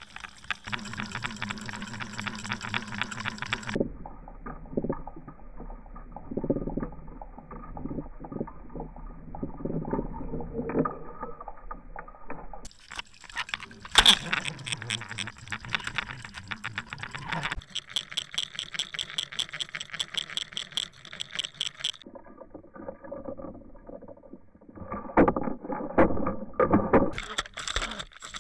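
Underwater camera sound of water rushing past the housing, mixed with clicks and rattles, in several short clips. The sound changes abruptly at each cut.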